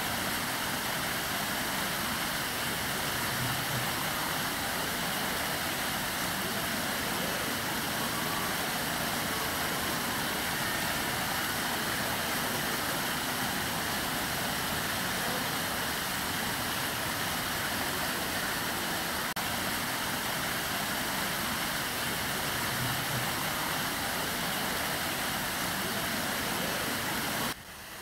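Water falling steadily over the stone ledges of a tiered artificial rock waterfall, an even rushing splash, with a brief drop in level near the end.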